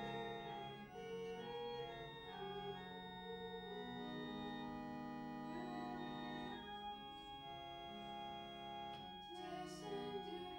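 Church organ playing slow, held chords that change every second or two, as offertory music during Mass.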